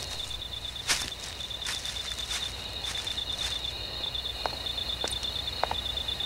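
Crickets chirping in a fast, steady pulse, with scattered knocks of horse hooves and a man's footsteps. The sharpest knock comes about a second in.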